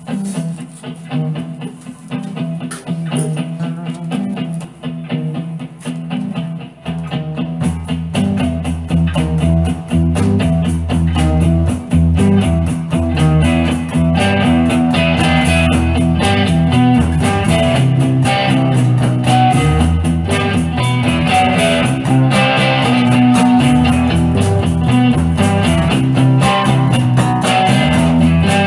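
Instrumental intro of a rock song: a guitar playing on its own at first, then a fuller, louder band sound with bass comes in about seven seconds in.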